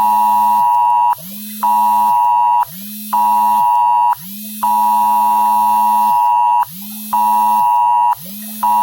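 Loud electronic beeping: a steady synthetic tone sounding in about one-second pulses with short gaps, one pulse twice as long, each starting with a quick upward slide.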